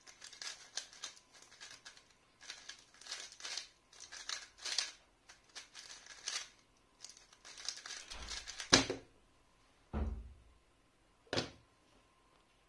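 Plastic 3x3 speedcube being turned fast by hand: a quick run of clicking, rattling turns for about eight and a half seconds, ending in a sharp loud knock as the solve finishes. A duller thump and a single click follow.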